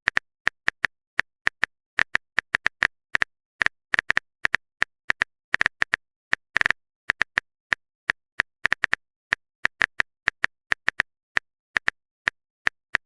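Typing sound effect: a run of short, sharp clicks like keys tapped on a phone's on-screen keyboard, coming unevenly, a few a second, with short pauses in between.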